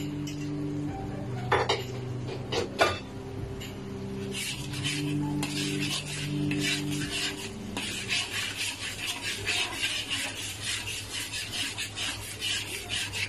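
Metal fork stirring and scraping sauce in a metal wok. There are two knocks of metal on the pan about two and three seconds in, then quick repeated scraping strokes from about four seconds in.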